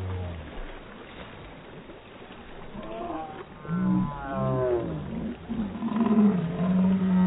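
Voices of swimmers in the water, slowed down with the slow-motion footage so that they come out deep and drawn out, gliding up and down in pitch. They begin about three seconds in, grow louder, and end on one held tone.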